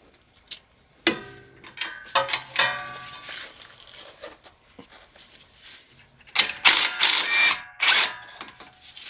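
Hand tools working the 22 mm nuts on the Honda Pilot's lower strut-to-knuckle bolts: metal wrench and socket clinking and ringing against the nuts and bolts, in two bouts, about a second in and again about six seconds in, with lighter ticks between.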